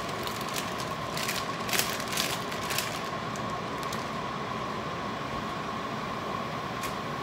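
Plastic pasta bag crinkling, with light clicks, as dry spaghetti is emptied into a pot of boiling water in the first three seconds. A steady fan-like noise with a faint steady whine carries on underneath throughout.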